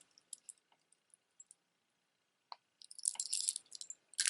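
Costume jewelry clinking and rattling as it is handled: a few faint clicks, a short quiet pause, then a brief flurry of high, light clinks of beads and metal pieces about three seconds in and a sharper click at the end.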